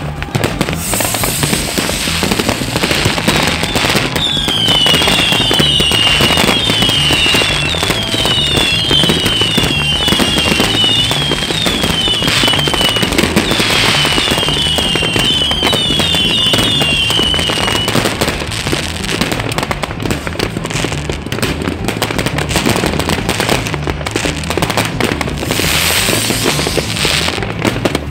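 Fireworks going off continuously: rockets and shells bursting with dense crackling, and from about 4 s to 18 s a run of overlapping high whistles that fall in pitch.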